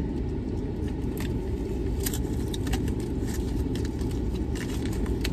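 A car idling, heard from inside the cabin as a steady low rumble, with scattered light clicks of fingernails tapping on a phone screen.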